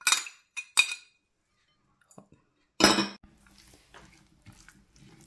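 A metal spoon clinking and scraping against a glass dish: three sharp ringing clinks in the first second. About three seconds in comes a single louder clunk, then faint handling noise.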